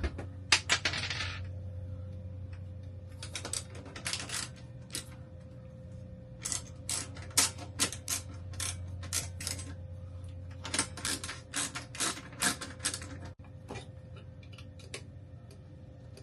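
Light clicks and metallic clinks in irregular clusters as hands work the wiring connectors and small metal parts inside an RV rooftop air conditioner's electrical box, over a steady low hum.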